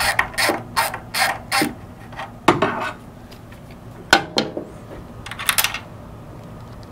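Ratchet wrench clicking through a run of quick strokes on a battery terminal nut, followed by a few scattered sharp metal clicks and taps.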